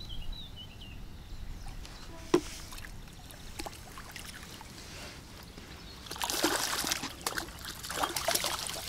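A hooked mirror carp splashing at the water's surface as it is drawn toward a landing net, with the loudest bursts of splashing about six and eight seconds in. A single sharp click comes about two seconds in.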